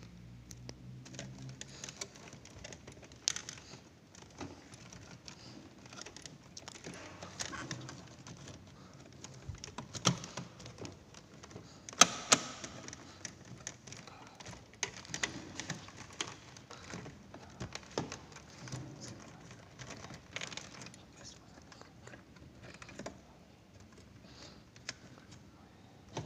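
Irregular small clicks, taps and rustling from hands handling the wiring and plastic plug-in connectors on a ceiling cassette air-conditioner's control board. A few sharper clicks stand out midway.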